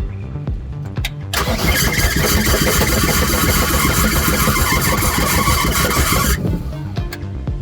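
Deutz diesel engine of a Gehl 4640 skid steer cranking on its starter for about five seconds, starting about a second in and cutting off suddenly, over background music.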